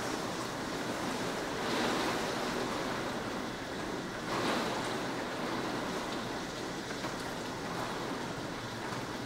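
Wind and heavy rain of a severe thunderstorm, a steady rushing noise that swells briefly about two seconds in and again around the middle.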